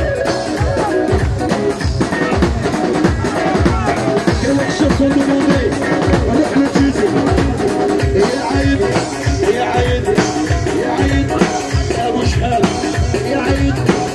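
Amplified live rai/chaoui music: a steady drum beat, two to three beats a second, under a sustained melody line, with a singer's voice over it.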